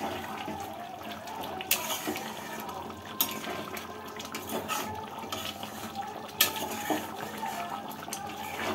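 Metal spatula stirring thick chicken rezala gravy in a pan: a wet, sloshing stir with a few sharp knocks of the spatula against the pan.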